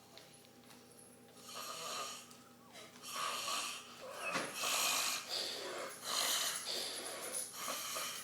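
A man snoring heavily while passed out drunk: a run of about five long, loud snores, the first about a second and a half in.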